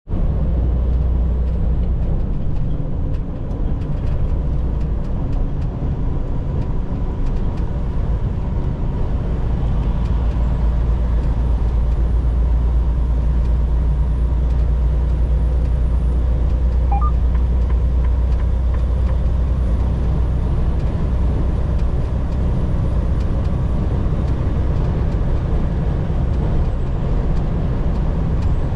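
Semi truck on the move: a steady low drone of engine and road noise that holds unchanged throughout.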